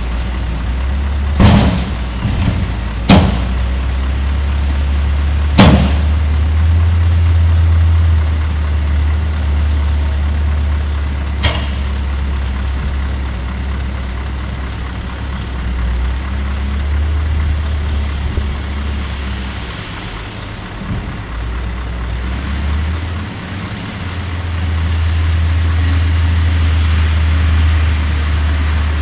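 Scania 164 truck's V8 diesel engine running, its revs rising and falling twice. Several sharp metallic knocks come in the first few seconds, with one fainter knock later.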